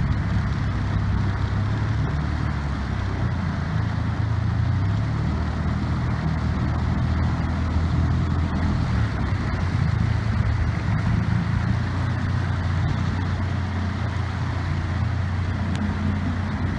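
The motor of a small aluminum boat running steadily under way, its pitch shifting slightly now and then, over a steady rush of water and wind.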